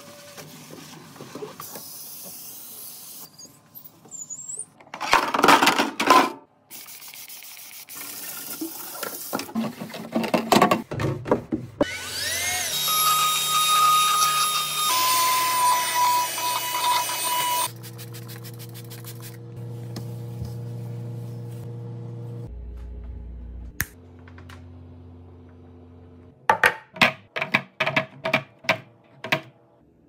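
A series of household cleaning sounds. First come loud rubbing and scraping bursts. Then a eufy cordless handheld vacuum spins up and runs with a steady high whine for about five seconds before cutting off. Near the end there is a quick run of sharp plastic clicks as bottles are set into a clear plastic bin.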